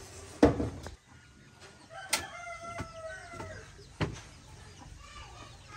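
Chickens clucking and calling, with a loud, brief rustling burst about half a second in and two sharp knocks, the first about two seconds in and the second about four seconds in.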